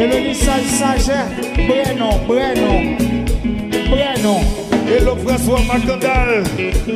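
Haitian kompa band playing live: a male lead singer sings over drum kit, congas and guitar with a steady dance beat.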